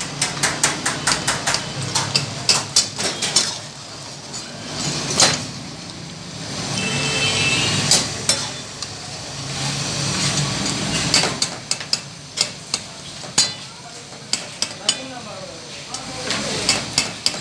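A long-handled slotted metal ladle clatters and scrapes against a karahi while pieces of lamb and tomato are stirred in their juices over the flame, with the sizzle of the frying meat. It opens with a fast run of sharp metal clicks, eases into stretches of steady sizzling, then brings more scattered scrapes and knocks.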